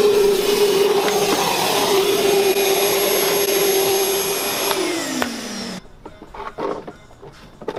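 Craftsman wet/dry shop vacuum running steadily, then switched off about five seconds in, its motor whine falling in pitch as it spins down. A few light knocks and clicks follow.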